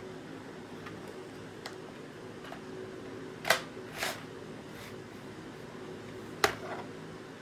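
Sharp mechanical clicks from handling an airsoft L96A1 sniper rifle over a steady hum: two loud clacks about half a second apart near the middle and a single sharp one near the end, with a few faint ticks before.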